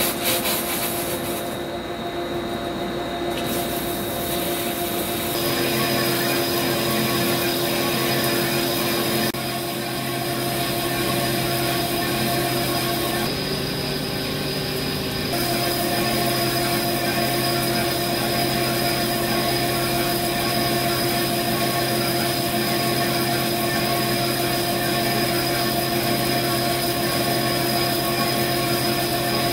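Vertical CNC lathe turning a cast-iron turbo compressor housing under flood coolant: a steady machine hum with several held whining tones over the hiss and splash of coolant. The tones shift briefly nearly halfway through.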